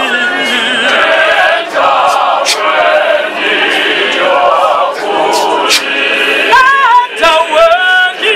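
A choir of men and women singing with a male lead voice, several voices holding and bending notes together.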